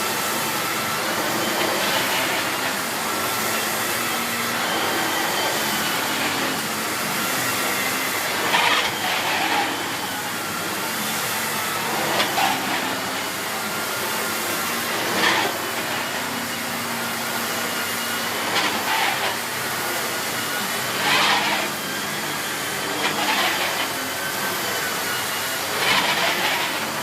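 Miele S8 canister vacuum cleaner running steadily: a rush of air with a thin motor whine, swelling louder briefly every few seconds.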